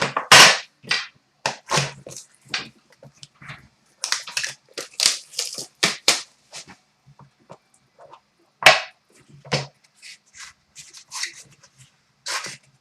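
Hockey card packaging and cards being handled: irregular rustling, crinkling and sliding, with a sharp snap about nine seconds in.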